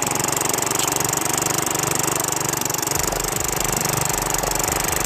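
Tecumseh small engine on a walk-behind string trimmer running steadily with an even, fast firing beat.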